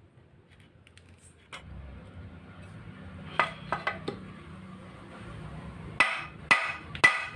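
Metal clinks and knocks from handling the opened Suzuki Multicab transmission case and its shafts: a few light clicks about halfway, then three sharper ringing metal strikes near the end, over a low steady hum.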